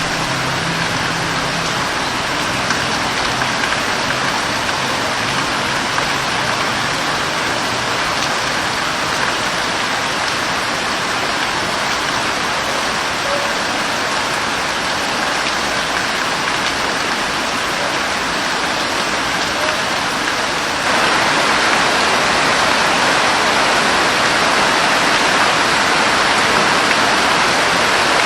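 Rain falling steadily, an even hiss of many drops. It turns abruptly louder about three-quarters of the way through.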